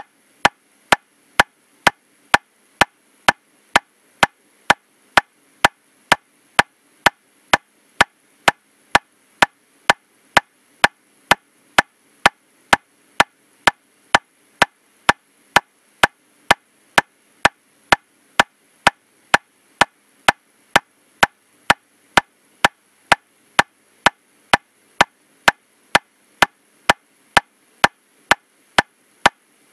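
Metronome clicking steadily at 127 beats per minute, a little over two evenly spaced clicks a second, all of equal strength.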